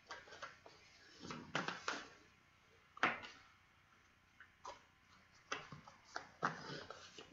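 A deck of tarot cards being shuffled by hand: a series of short, irregular rustles and flicks of the cards, the sharpest about three seconds in.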